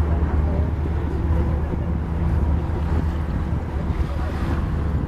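Steady low engine drone of a boat under way, with wind buffeting the microphone and the wash of water.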